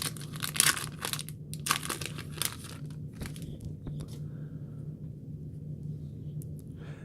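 Wrapper of a trading-card pack being torn open and crinkled, busiest in the first three seconds, then lighter rustling as the cards are handled.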